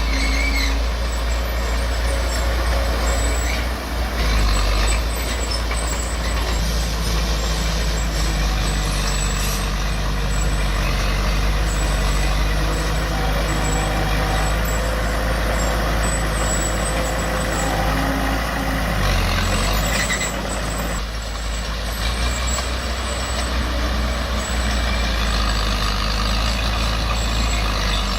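Heavy diesel engine of earth-moving machinery running steadily under load, a constant low hum with mechanical noise over it.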